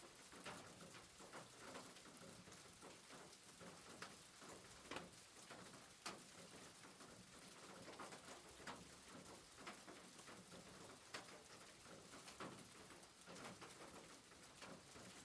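Faint rain on a rooftop: a steady hiss with scattered drops tapping at irregular moments.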